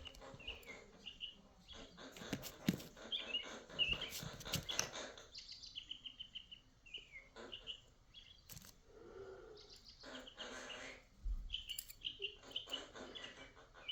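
A pet bird chirping in short, scattered calls, with light clicks and rustling from small parts being handled.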